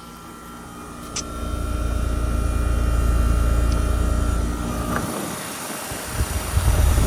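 Trane XR15 heat pump outdoor unit running in heat mode, with its Climatuff reciprocating compressor giving a steady hum of several tones. The hum stops with a click about five seconds in. A heavy low rumble of wind on the microphone swells through the middle, and uneven low thumps come near the end.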